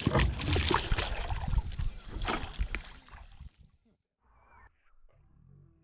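Hooked smallmouth bass thrashing and splashing at the water's surface, with irregular splashes and sloshing for about three seconds before it dies away.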